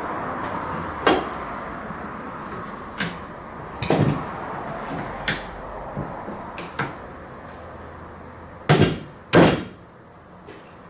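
Sash clamp being handled and set on a glued-up wooden bench frame: scattered knocks and clicks of metal and wood, with two louder knocks about half a second apart near the end.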